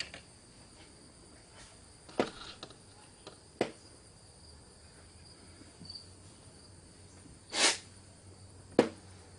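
A faint, steady, high-pitched insect trill, like crickets, with a few sharp knocks and clicks: two in the first four seconds, a longer one past the middle and another near the end.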